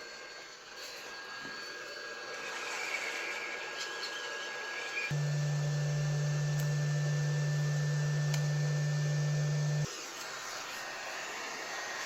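An electric appliance running with a steady hiss. A loud, steady low hum cuts in about five seconds in and stops abruptly near ten seconds.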